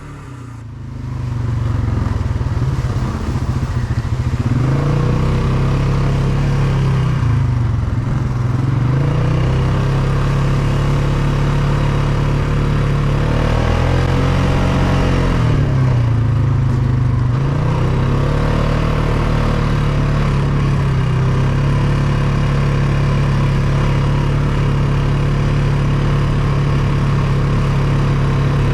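ATV engine running under way, getting louder about a second in. Its pitch rises and falls several times with the throttle, then holds steady for the last ten seconds or so.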